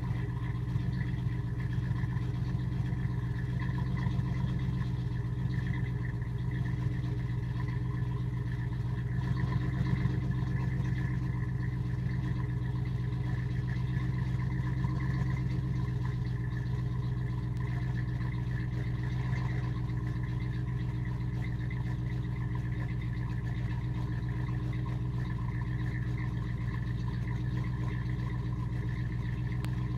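Ford Mustang LX's 5.0 V8 idling steadily through shorty headers, a catless X-pipe and a Bassani cat-back exhaust.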